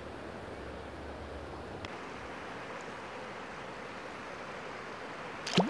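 Steady rush of river water flowing over a shallow riffle. Near the end there is one short, sharp squeak that rises quickly in pitch.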